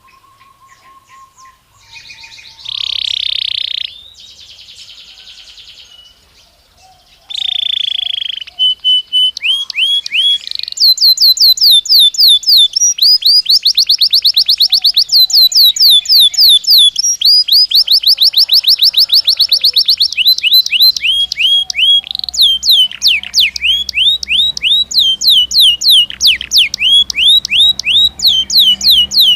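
Belgian canary singing: after some soft notes and two short buzzy phrases, it breaks into long, loud trills of rapid repeated downward-sweeping notes that run on, changing rhythm every few seconds.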